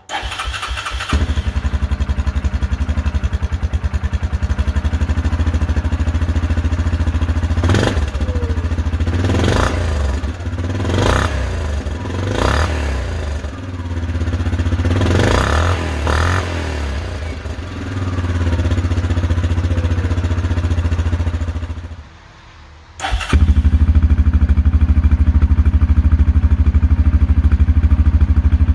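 Yamaha Kodiak 450 ATV's single-cylinder four-stroke engine running through its stock exhaust tip, engine speed rising and falling several times. About 23 seconds in, after a brief drop, it idles louder and evenly through an aftermarket exhaust tip.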